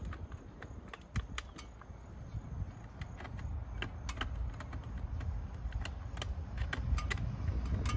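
Irregular sharp clicks, taps and scrapes of a hand tool working formed plastic sign letters and their stud posts loose from a wall, over a low steady rumble.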